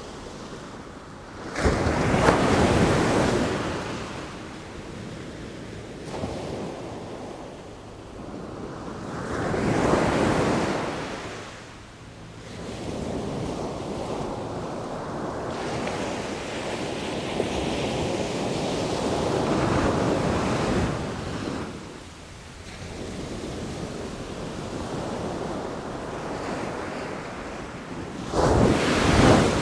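Sea waves breaking in repeated surges of surf, each swelling and washing away. The loudest crash in suddenly near the start and again near the end, with a longer, drawn-out wash in the middle.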